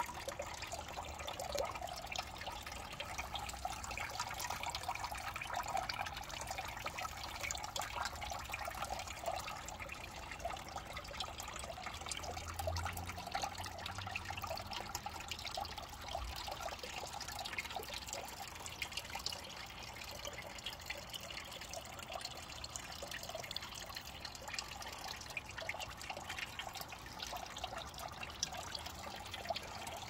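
Tiered cascade fountain trickling steadily, small streams of water falling from its spouts into the basins and the pebble-filled pool below.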